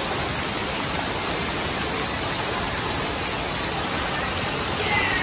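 Water pouring and splashing steadily from the spouts and tipping bucket of a water-park play structure, a continuous rushing hiss.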